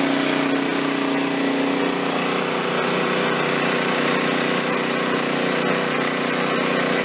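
Small portable gasoline generator running at a steady speed under a load of about 485 watts, its engine note holding one even pitch.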